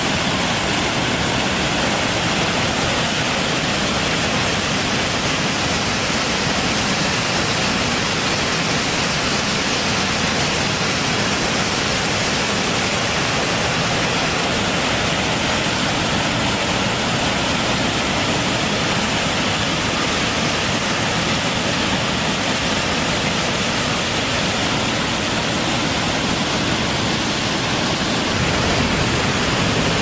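Mountain waterfall in full flow, pouring down a narrow rock gorge: a steady, loud rush of falling water that never lets up.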